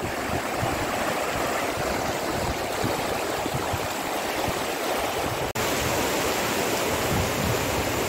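Steady rush of flowing water from the stream and waterfall, with a momentary break in the sound about five and a half seconds in.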